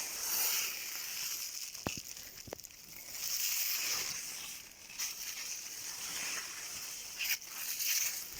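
Leaves and plants rustling in swells, stirred by a strong wind, with two short clicks a little under two seconds in, about half a second apart.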